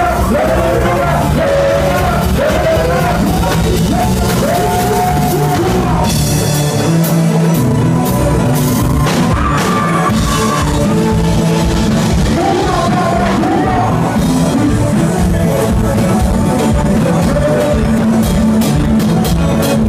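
A Haitian konpa band playing live, with male voices singing the melody over a steady drum-kit beat, keyboard and bass. The bass and kick drum drop out briefly about seven seconds in.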